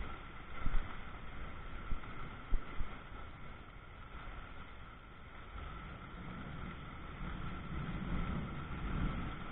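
Steady hiss of heavy thunderstorm rain and wind, with a few sharp low thumps of gusts buffeting the microphone in the first few seconds. A low rumble swells over the last few seconds.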